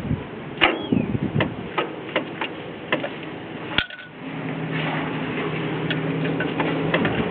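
Scattered clicks and knocks, then from about four seconds in a steady drone as the Craftsman mower's electric starter cranks the engine on a weak battery boosted by a jump pack, without the engine catching.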